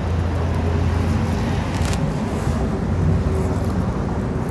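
Steady low rumble of road traffic, with a deeper engine-like hum that swells about a second in and again near the three-second mark.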